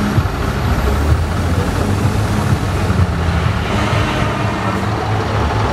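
Heavy diesel engines of two semi-tractor units, a Scania and an Iveco, running loud and steady at a drag-race start line, with a faint high whistle rising in the first second.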